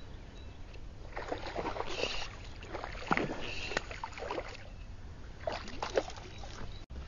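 Water splashing on a river surface in a few short splashes, about a second or so apart.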